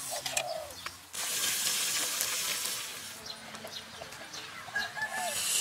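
A hiss cuts in suddenly about a second in and fades after about two seconds. Short clucking calls of chickens come near the start and again near the end.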